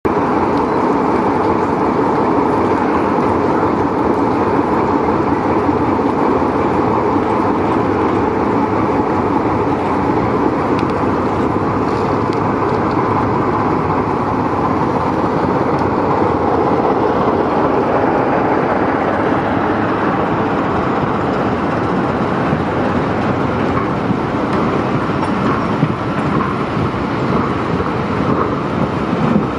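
BR Class 25 diesel locomotive D7535 pulling into the station with its Sulzer engine running loud and steady as it passes, followed by the rumble of its coaches rolling past over the rails.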